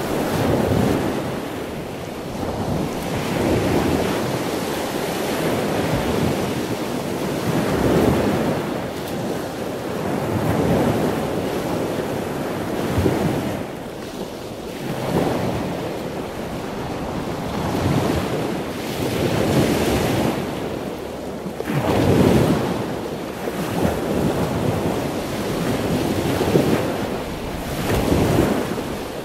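Continuous rushing of surf and wind, swelling and easing every two to three seconds, with wind buffeting the microphone.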